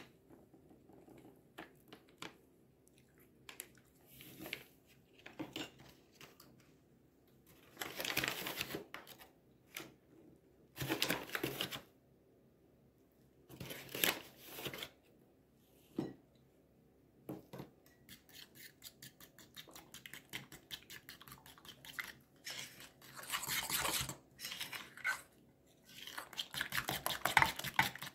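Kitchen handling sounds: a few separate rustling bursts in the first half, then a spoon beating egg batter in a glass bowl, a fast run of small clicks against the glass that grows louder near the end.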